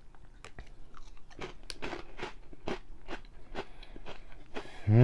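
A person crunching and chewing crunchy Flamin' Hot Limón Cheetos, a crisp crunch every half-second or so. Near the end comes a short, loud hummed 'mmm' with a pitch that rises and falls.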